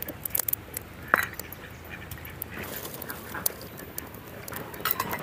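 Knocks and grating of a stone roller on a stone grinding slab (ammi kal), and a steel bowl scraped against the stone, with a few short squeaks.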